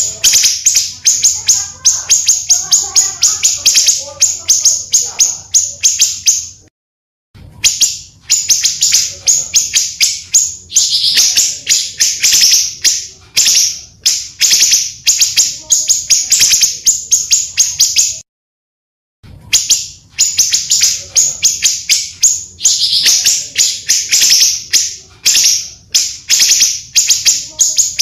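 Recorded pancawarna bird song: long runs of quick, high-pitched chirps, several a second, cut by two short silent gaps, about 7 and 18 seconds in. It is played as a lure and tutoring call for birds.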